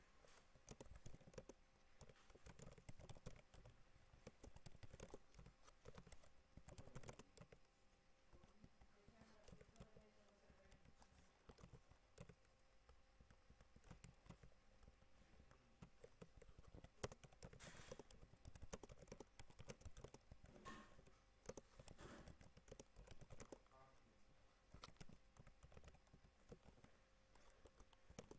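Faint typing on a computer keyboard: irregular key clicks in quick runs with short pauses.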